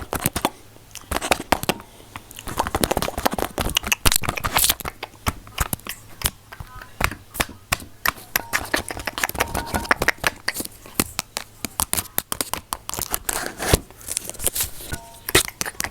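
Close-miked ASMR trigger sounds: dense, irregular clicks and crackles right at the microphone.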